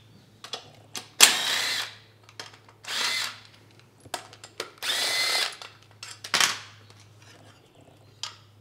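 Power drill/driver run in four short bursts, each under a second, with light clicks of tool handling between them.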